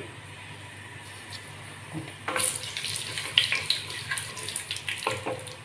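Fenugreek seeds frying in hot sesame oil in a clay pot, stirred with a wooden spatula; a crackling sizzle starts about two seconds in, the sign that the oil is hot enough for the seeds to splutter.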